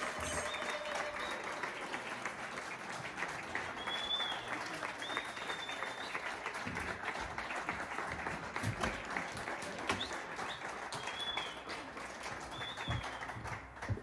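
Audience applauding steadily, with a few short high-pitched chirps above the clapping, thinning out near the end.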